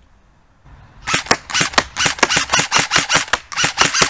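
Specna Arms SA-C04 electric airsoft rifle with a V2 reinforced gearbox firing a rapid string of semi-automatic shots, sharp clacks about six or seven a second, starting about a second in.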